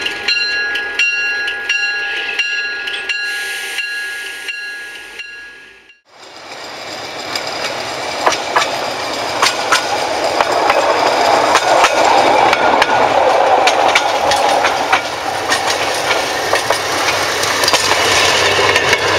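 Canadian Pacific diesel locomotive 4069 passing slowly, its bell ringing with a regular strike about twice a second over steady high tones. About six seconds in the sound cuts off abruptly, followed by small motorized railway speeder cars running along the track, a busy engine rumble with many rail clicks that grows louder.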